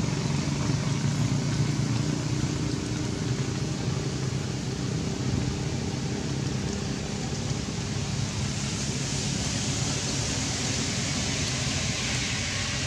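A steady low mechanical hum under a constant hiss; the hiss grows brighter about nine seconds in.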